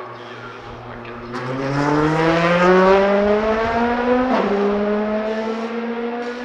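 Race car engine accelerating hard, its pitch climbing, with a quick upshift about four seconds in and another near the end.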